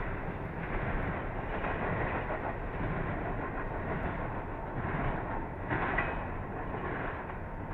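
Norfolk Southern intermodal freight train's cars rolling past on the rails: a steady rumble of steel wheels on track, with a brief louder patch about six seconds in.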